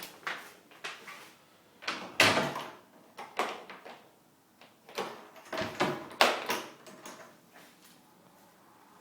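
A door being opened and closed, in a series of scrapes and knocks, the loudest about two seconds in and more around five to six seconds.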